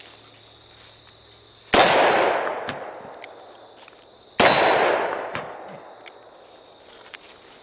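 Two .357 Magnum revolver shots from a Ruger GP100, about two and a half seconds apart. Each is a sharp, loud crack followed by a long fading tail.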